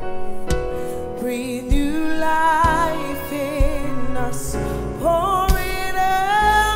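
A woman singing a gospel song over instrumental backing, with vibrato on long held notes and a few sharp hits in the accompaniment.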